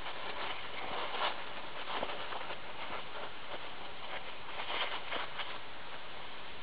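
Paper towels being scrunched up and handled: soft, scattered rustling with a few light taps.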